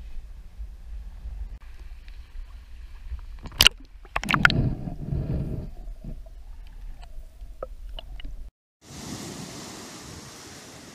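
Wind rumbling on the microphone, a sharp knock and then a loud splash and gurgling as the camera goes into shallow water. After a cut near the end, small waves steadily wash up the sand.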